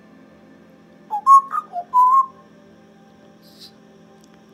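African grey parrot whistling five quick notes that hop up and down in pitch, the last one held a little longer.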